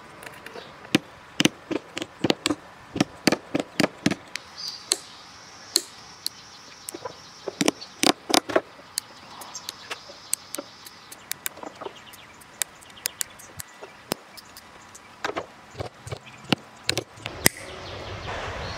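Sharp snips and clicks of hand cutters trimming the excess strands of pressed sheet cane around a chair seat. They come irregularly, several a second in bursts.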